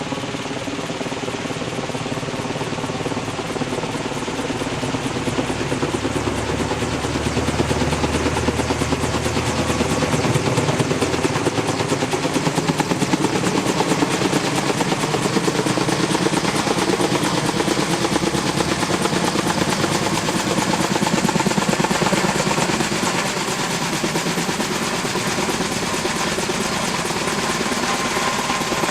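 Helicopter running close by, its rotor giving a fast, even chop over a steady engine and turbine sound, louder through the middle and easing toward the end.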